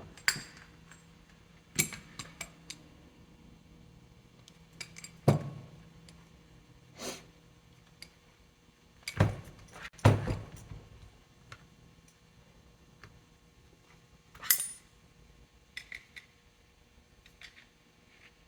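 Metal tools and pump parts clanking and knocking on a workbench: a string of separate knocks and clinks, the loudest about five, nine and ten seconds in.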